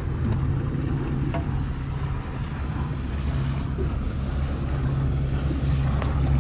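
Small boat outboard motor running at a steady idle, a constant low hum, with wind on the microphone.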